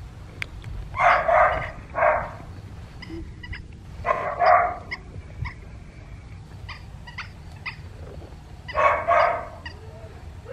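Dalmatian puppy barking in four short bouts of one or two barks each.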